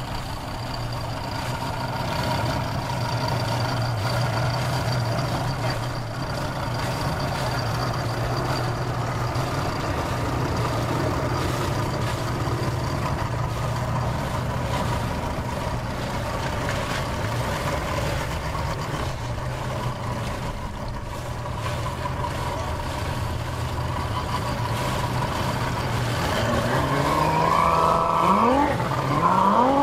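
Evinrude 150 two-stroke V6 outboard on a bass boat running at low throttle with a steady hum, then revving up with rising pitch near the end as the boat is power-loaded onto its trailer.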